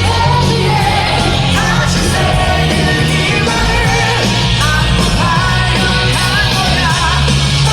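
Loud rock-style music with a singing voice over a heavy bass line.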